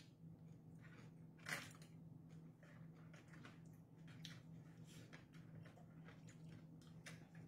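Faint eating sounds: quiet chewing and light clicks of spoons and forks against plastic food trays, with one louder click about a second and a half in, over a steady low hum.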